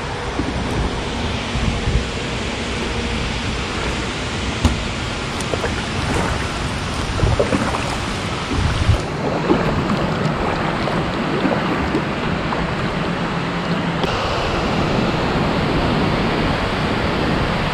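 Steady rush of water at the dam, with a few light knocks over it.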